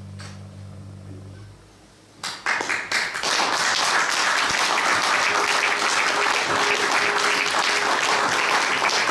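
The last low held notes of the accompaniment fade out, then audience applause breaks out about two seconds in: a few scattered claps that quickly swell into steady, full clapping.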